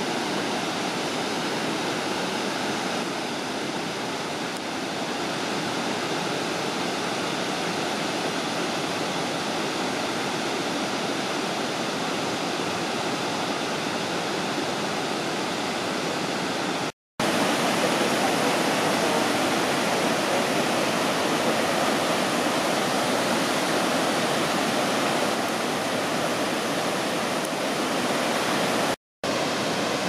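Tiered waterfall rushing steadily, a continuous wash of falling water. The sound cuts out twice for a split second, about 17 seconds in and just before the end, and comes back a little louder after the first gap.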